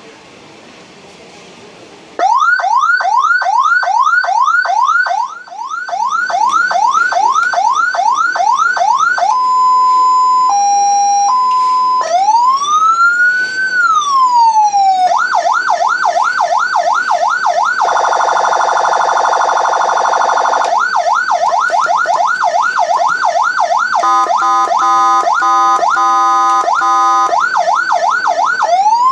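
Electronic emergency siren module driving a 100 W horn speaker, cycling through its tones. It starts about two seconds in with a fast yelp of rising sweeps, about three a second, then gives a steady tone with a brief lower step and one slow wail rising and falling. After that come more yelp, a buzzing horn tone, and a rapid stepped two-tone warble.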